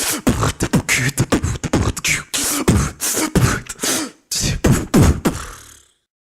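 Human beatboxing: a quick pattern of mouth-made kick drums, each dropping in pitch, with hissing snare and hi-hat sounds, stopping about six seconds in.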